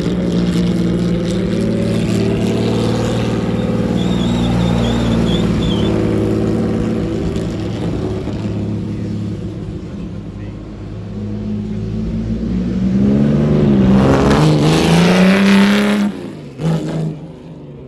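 1956 Jaguar D-Type's twin-cam inline six on three Weber carburettors, running as the car is driven around a lot. It fades as the car moves away, then swells with a rising pitch as the car accelerates past close by, and cuts off suddenly about sixteen seconds in.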